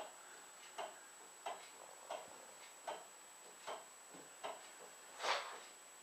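Soft, even ticking, a little more than one tick a second, over a faint high-pitched steady whine.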